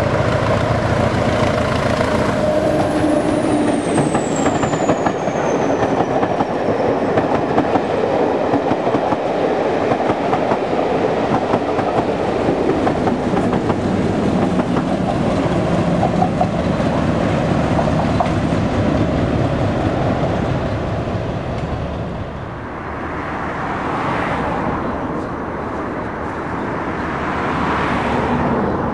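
Class 20 diesel locomotive, with its English Electric eight-cylinder diesel, passing close by with a train of coaches; a high whistle falls steadily in pitch as it goes by, then the coaches rumble and clack over the rail joints. The sound dips about two-thirds of the way through and swells again near the end.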